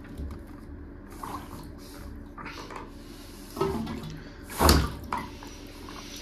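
Hand-pump plunger worked over a blocked bath waste under a little water: water sloshing and gurgling around the rubber cup as the handle is pumped, with a short, loud gush of water and air about four and a half seconds in.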